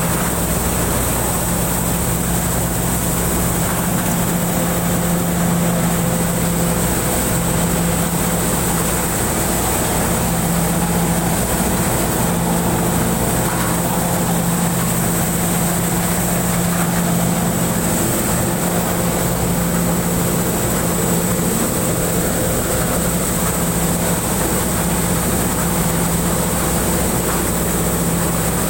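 Rice combine harvester running steadily while harvesting, heard from the driver's seat: a constant machine drone with a low hum and a thin high whine over it.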